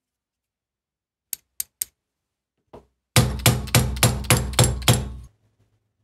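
Light hammer blows on the steel parts of a milling-machine joystick mechanism. Three light metallic clicks come first, then a soft knock, then about seven firm strikes in quick succession, roughly three or four a second, each with a dull thud under a metallic ring.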